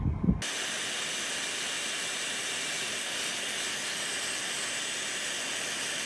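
Flux-core arc welding with a Harbor Freight Titanium Flux 125 inverter welder: a steady sizzling hiss of the arc laying a bead. It starts abruptly about half a second in.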